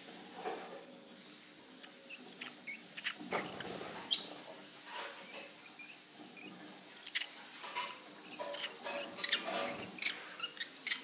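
Newly weaned rosy-faced lovebird chicks making short, high, scattered chirps and squeaks, with small soft clicks among them.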